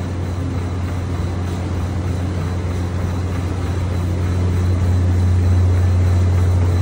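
Cybex treadmill running with a steady low motor hum under the whir of the moving belt, growing a little louder in the second half.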